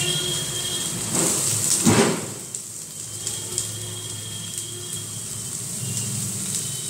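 Pieces of pointed gourd dropped into hot ghee in a frying pan, sizzling. There are two loud surges of sizzle about one and two seconds in, then a steady, quieter sizzle.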